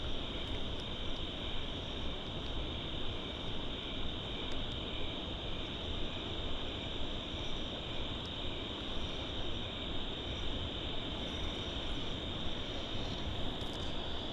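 Steady chorus of night insects, a continuous high-pitched trill, over a low even rumble.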